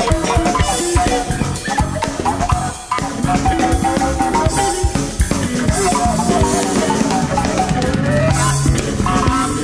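Instrumental ethno-jazz band playing, a busy drum kit with rimshots driving under guitar and a melody line.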